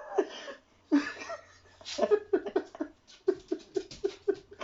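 Helpless, breathless laughter: short high-pitched bursts repeating about three to four times a second, with gasping breaths in between.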